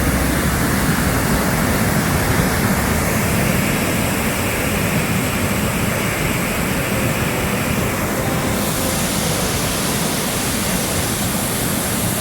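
Heavy rain falling: a loud, steady, dense hiss.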